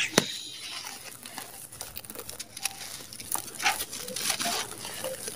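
Dry, gritty red sand-cement clumps crunching and crumbling in bare hands: scattered crackles, with a sharp crack just after the start, and short sprinkles of falling grains.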